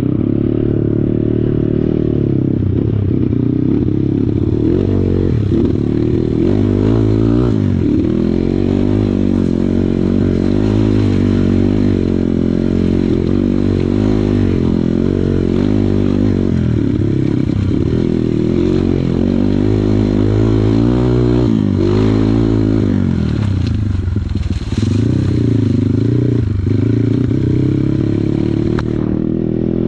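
Kawasaki KLX140 trail bike's single-cylinder four-stroke engine running under load, its revs rising and falling again and again as the throttle is worked.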